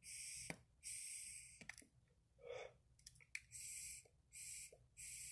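Faint sounds of a person drinking a shot: a couple of soft clicks and one breath or gulp about two and a half seconds in, over a high hiss that cuts in and out.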